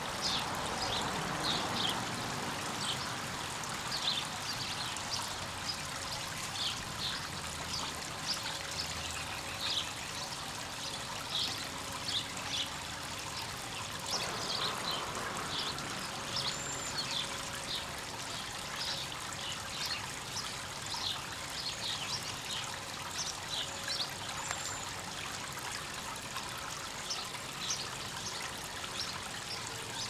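Small bird-bath waterfall trickling steadily over stones, with short, high bird chips repeating about once a second and a couple of thin, high whistles.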